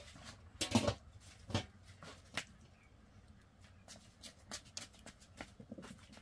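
A metal pot and its lid being handled: a scraping clatter about a second in, a sharp knock soon after, then scattered light taps and clicks.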